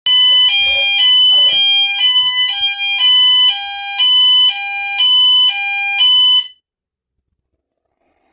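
Building fire alarm sounding a loud two-tone hi-lo warning, swapping between two pitches about every half second. It cuts off suddenly about six and a half seconds in.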